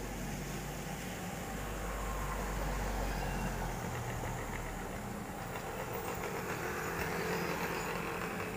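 A car driving past on the street and away, its engine and tyres making a low rumble. The rumble is strongest in the first few seconds, and a wider rushing noise swells near the end.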